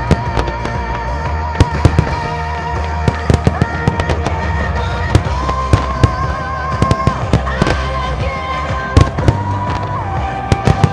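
Fireworks going off in many sharp bangs at irregular intervals, over the show's music soundtrack with long held notes and a steady bass.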